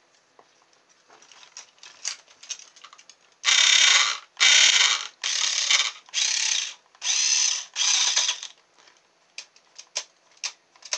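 Toy RC car's small electric drive motor and plastic gears whirring in six short bursts, each about half a second to a second long, with light clicks before and after. It is running off two LiPo batteries joined together, which together are enough to make it work where one on its own was not.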